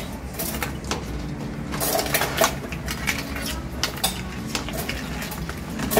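Metal ladle knocking and scraping against the side of a metal soup pot as soup vegetables are scooped out, a series of short irregular clinks over a low steady hum.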